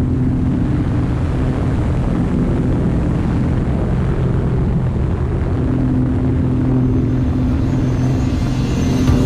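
Single-engine propeller plane's engine and propeller running with a steady drone, with wind rushing past the open jump door.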